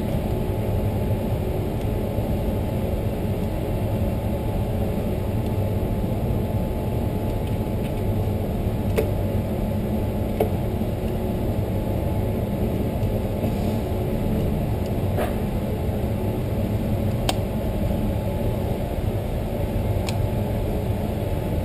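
Steady low ventilation hum, with a handful of faint, sharp clicks scattered through it as cartridges are fed into a revolver's swung-out cylinder.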